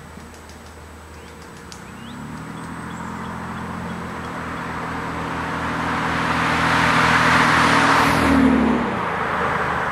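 A 2007 Pontiac G6 GT's 3.5-litre V6 running through a Classic Performance GT-R aftermarket exhaust, holding an even note as the car approaches and grows steadily louder. Tyre noise peaks as it passes close by about eight seconds in, and the exhaust note drops away just after.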